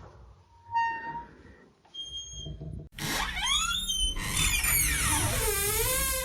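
Squeaky door hinge creaking as a door swings open: a short squeak about a second in, then from about three seconds a long, loud creak whose pitch slides up and down.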